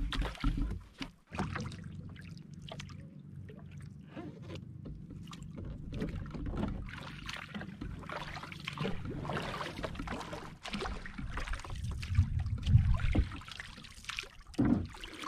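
Sea water splashing and trickling around a small outrigger canoe as a wooden paddle dips and pulls through the water, over a low rumble that grows louder near the end.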